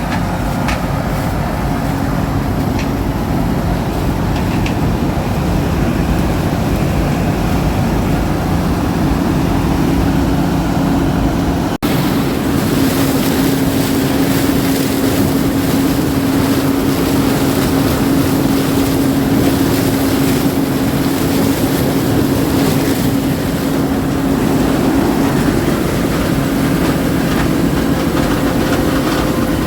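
Heavy harvest machinery running steadily under load, a continuous loud engine drone with a steady hum. It breaks off for an instant about twelve seconds in, and the hum is stronger after that.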